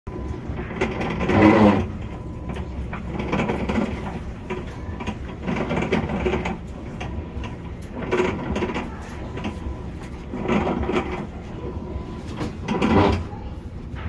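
Whirlpool Cabrio top-load washing machine running a cycle with a loud grinding sound that swells in six surges, about one every two and a half seconds. The grinding comes from a failed, stripped actuator plate.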